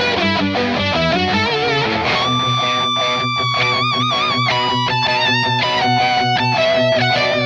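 Electric guitar, a Fender Limited Stratocaster with Floyd Rose bridge, playing a lead melody with held, sustained notes shaken with vibrato, over a steady pulsing low accompaniment.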